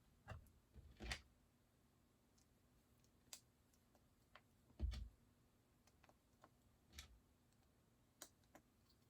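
Faint, scattered clicks and light taps of small plastic Lego pieces being handled and fitted, with a soft low thump about five seconds in.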